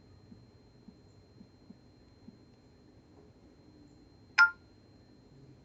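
A single sharp clink with a brief ring about four seconds in, over a faint low hum and a thin steady high whine.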